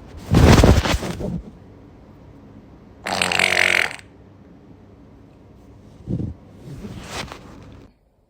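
A person's farts heard through a voice-chat microphone: a loud, low one just after the start, a higher, more tonal one about three seconds in, and two short, quieter ones near the end.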